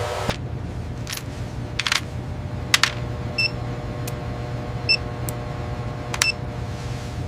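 A steady low hum with scattered sharp clicks and three short electronic beeps.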